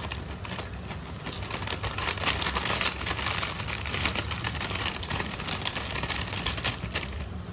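Plastic snack packet crinkling while crunchy coated snack pieces are poured and shaken from it into a metal pan of puffed rice, a dense run of small clicks and rustles.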